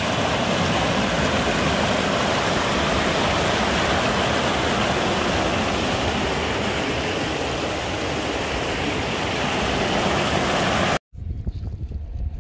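Rushing white water of a rocky river rapid, a steady loud wash close to the microphone. It cuts off suddenly about eleven seconds in, leaving much quieter open-air sound.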